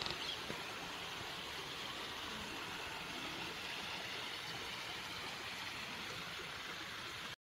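Small rocky forest stream running over stones: a steady, even rush of water.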